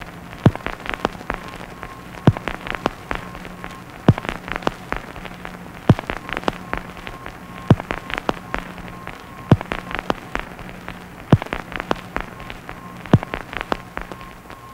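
Crackle of old soundtrack surface noise, with a sharper click repeating about every two seconds over a faint low hum.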